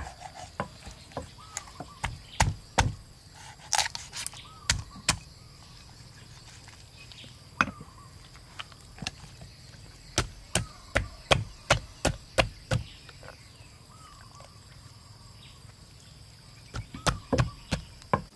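Heavy cleaver chopping a whole raw chicken on a thick wooden chopping block: clusters of sharp, quick strikes with pauses between them.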